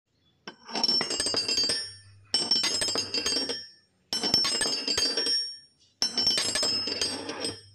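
Intro sound effect of glassy clinking and chiming, played in four bursts about two seconds apart.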